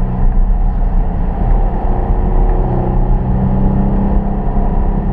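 2013 Dodge Durango's 3.6-litre Pentastar V6 with a K&N cold air intake, running under throttle while driving: a steady low drone.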